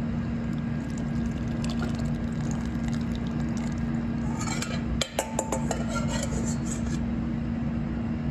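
Braising liquid being poured from a stainless steel bowl into a ceramic serving bowl over hominy, with a cluster of metal clinks and scrapes against the bowls a little past halfway. A steady low hum runs underneath.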